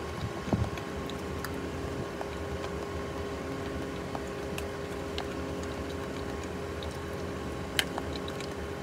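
Eating sounds: a spoon clicking and scraping in a small plastic dessert cup a few times, with quiet chewing, over a steady low hum.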